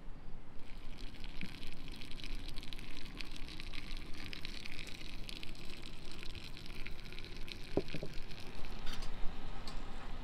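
Liquid pouring and trickling into glass jars, with a few light knocks near the end.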